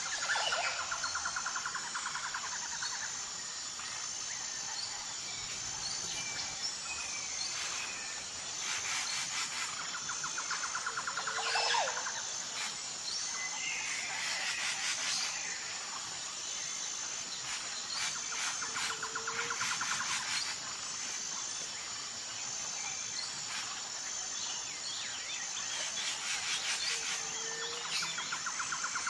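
Outdoor nature ambience: a steady high insect trill runs throughout, under bird calls. A rapid trill recurs about every eight seconds, with short chirps and whistles in between.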